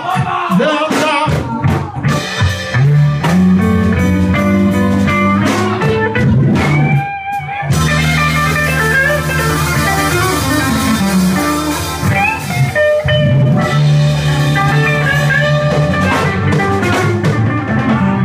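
Live blues band playing an instrumental stretch: electric guitar with bending notes over a steady bass-guitar line, keyboards and a drum kit with cymbals. The band drops out briefly about seven seconds in.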